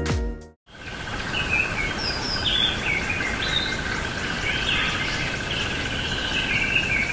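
Birds chirping and calling at daybreak over a steady, pulsing insect trill, with a light hiss of outdoor ambience.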